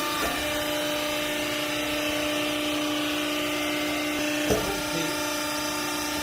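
Machinery running with a steady pitched hum over a hiss, with a single short knock about four and a half seconds in.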